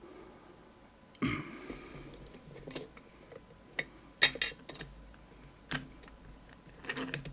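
Light metallic clicks and clinks of lock-picking tools against a Medeco lock cylinder, with a short scrape about a second in.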